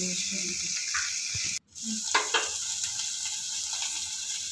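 Boiled sweet corn kernels sizzling in butter in a stainless steel kadai, stirred with a wooden spoon. The sizzle drops out for an instant about a second and a half in, with a few short clicks just after.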